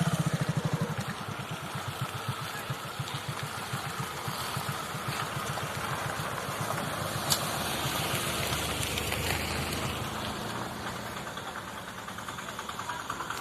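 Motorcycle engine running with a regular putter. It is loudest at the start, then settles to a steadier, quieter running.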